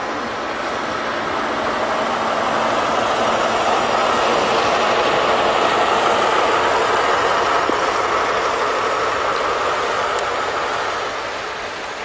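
InterCity 125 High Speed Train passing on snowy track: the rumble of its coaches and power car swells to a peak about halfway through, then fades near the end as it moves away.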